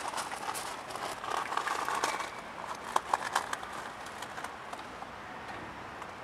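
Outdoor background noise with scattered irregular clicks and knocks, busier in the first few seconds and thinning out after about four seconds.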